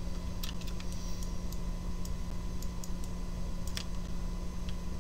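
Scattered light clicks of a computer mouse and keyboard, a dozen or so at uneven intervals, over a steady low hum.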